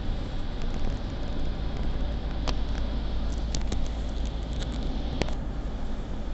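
Steady low rumble and road noise of a car driving, with a few sharp clicks between about two and a half and five seconds in.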